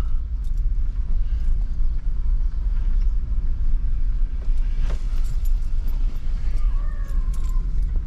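Pickup truck driving, heard from inside the cab: a steady low engine and road rumble.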